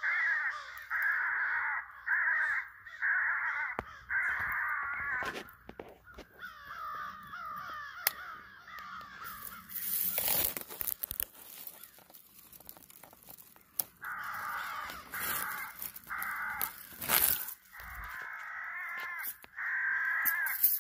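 Crows cawing in repeated runs, about one caw a second, with a quicker warbling stretch in the middle. A brief rustle of handling noise comes about ten seconds in.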